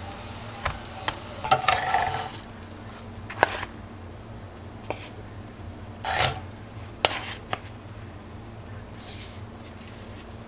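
Wooden spatula knocking and scraping against a stone-coated grill pan as the toasted sandwich rolls are pressed and lifted out. The sound is a series of separate knocks and clicks over a low steady hum.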